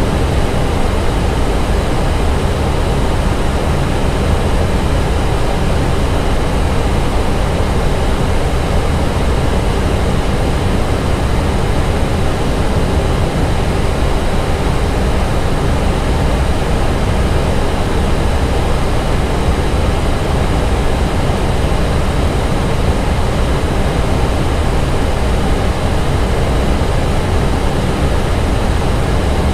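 Steady, unbroken rushing noise of an Airbus A320 in flight, heard inside the cockpit: airflow and engine noise, heaviest in the low range.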